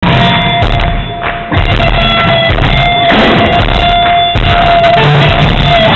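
Live band playing a rock-blues number loudly, with a steady drum beat and held notes over it. The sound is badly recorded.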